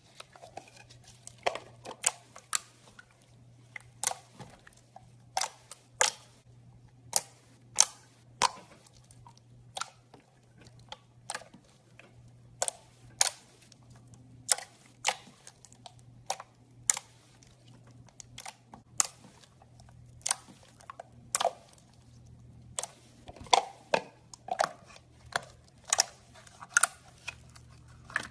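Slime being squeezed and poked by hand, giving a string of sharp clicking pops as air pockets burst, at an irregular pace of about one or two a second.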